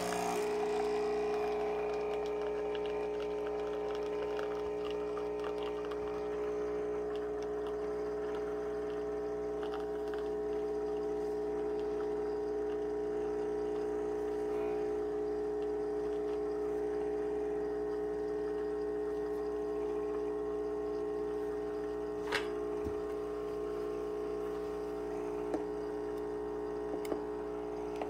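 De'Longhi Nespresso Lattissima Plus espresso machine's vibration pump running steadily as it brews a Lungo shot through a capsule: a kind of loud, even hum, with the coffee streaming into a glass cup. One small click sounds about three-quarters of the way through.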